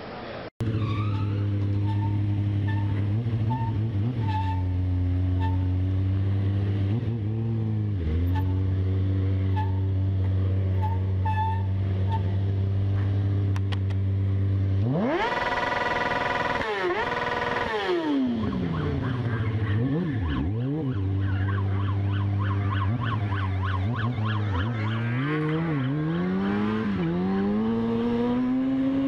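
Motorcycle engine heard on board, starting abruptly about half a second in. It runs at a steady pitch, is revved hard about halfway through and then drops back, and rises and falls with the throttle near the end.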